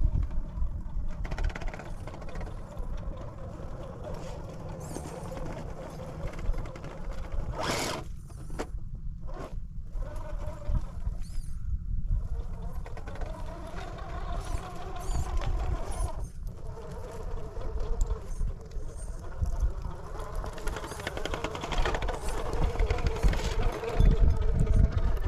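RC rock crawler's electric motor and geared drivetrain whining, the pitch rising and falling with the throttle as it climbs, over a low rumble. The sound breaks off briefly a few times near the middle.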